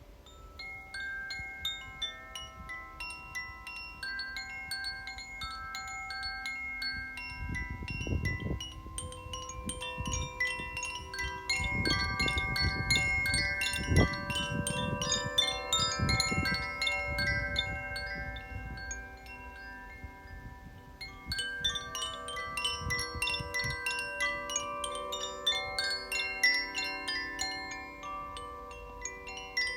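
Koshi and Zaphir tuned wind chimes ringing, with many struck tones overlapping and sustaining into a shimmering cluster. The chiming grows busier and louder after the first few seconds, thins briefly about two-thirds of the way through, then picks up again. Bursts of low rumble come in the middle.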